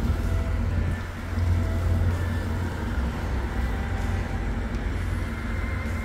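Steady low rumble of passing road traffic, swelling a little and easing again over a few seconds.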